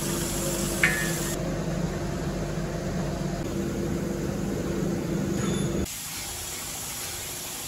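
Steady mechanical noise with a hiss and a hum, with a sharp click about a second in; it drops abruptly to a quieter steady hum near the end.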